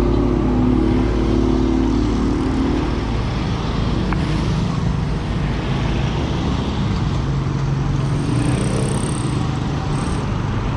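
Motor vehicle engines running with road traffic noise, a steady rumble whose engine pitch shifts lower partway through.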